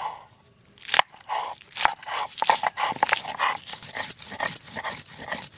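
Green chilies being crushed on a stone grinding slab (shil) with the hand-held grinding stone (nora): a run of irregular crunches and gritty scrapes starting about a second in.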